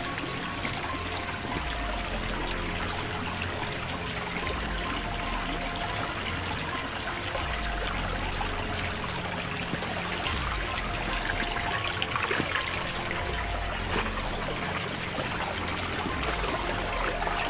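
Creek water running steadily, a continuous rushing trickle.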